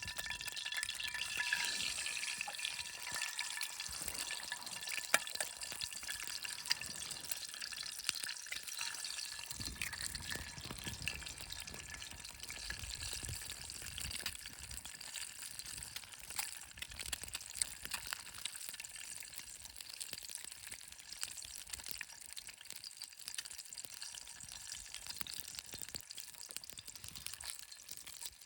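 Food frying in oil in a pan over a campfire: a steady sizzling hiss with scattered crackles and pops.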